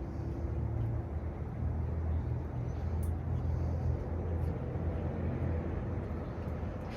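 Low, steady rumble of a motor vehicle's engine, growing a little stronger about a second in.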